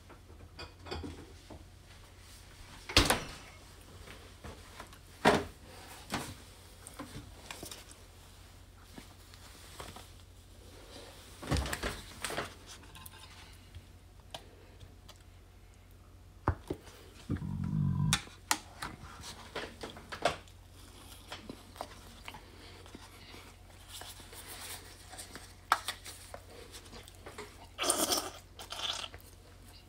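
Tabletop handling sounds: a plastic squeeze bottle of sauce being picked up, turned over and squeezed out over a plate near the end, with scattered clicks and knocks. The loudest are two sharp knocks a few seconds in.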